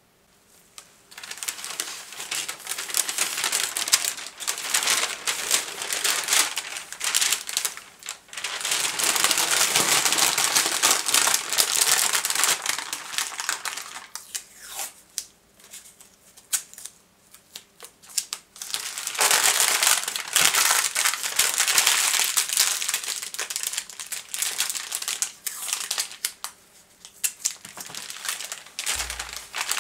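Bubble wrap and sheets of wrapping paper crinkling as they are handled and folded around small objects by hand. It comes in three long stretches of loud crinkling with quieter rustling between.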